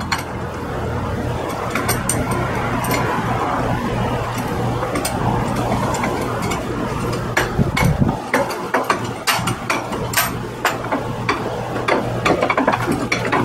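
Scattered light clicks and knocks from hands and a G-clamp working at a scooter's front tyre and rim, coming more often in the second half, over a steady low hum.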